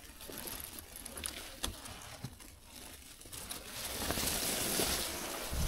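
Faint rustling of leaves and crackling of soil and twigs as gloved hands dig a wild mushroom out of the ground, with scattered small ticks; the rustling grows a little louder about four seconds in.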